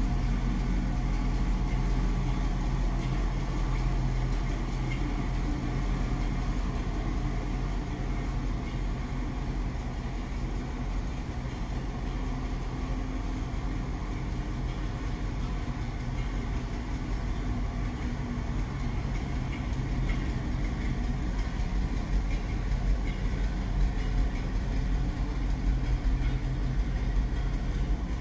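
1957 Ford F800 Big Job fire truck's V8 engine idling steadily.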